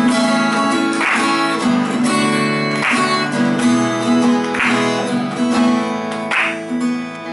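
Acoustic guitar strummed in a steady chord pattern, with a harder accented strum about every two seconds.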